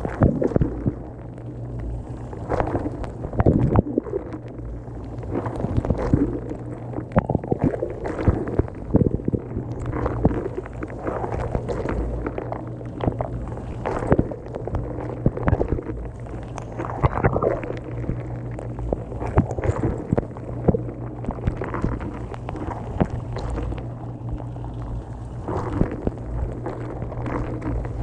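Dishwasher running, heard from inside the tub: water spraying and splashing in irregular bursts over a steady low hum.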